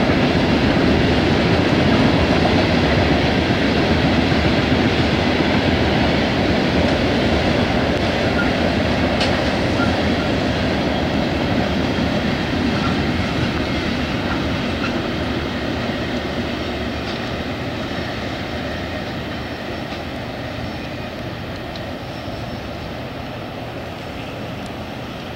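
A train of loaded Southern Railway coal hopper cars rolling past with a steady rumble and wheel noise that slowly fades.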